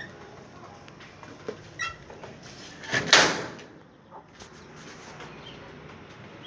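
A sudden loud clatter about three seconds in, lasting about half a second, with a few lighter knocks and a brief squeak before it.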